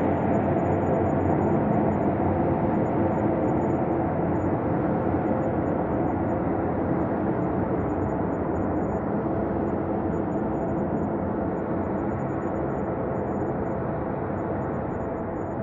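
Ambient space drone: a steady, dense low wash of sound with a few faint held tones in it, easing off slightly toward the end.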